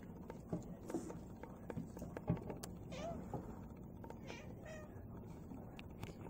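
A cat giving short meows up at a skylight, among sharp taps of crows' beaks and feet on the glass and roof. The loudest tap comes a little past two seconds in.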